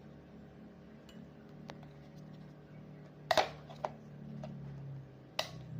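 A few sharp plastic clicks from the speed switch of an unplugged metal-blade electric fan being turned and the fan handled, the loudest about halfway through, over a faint low hum.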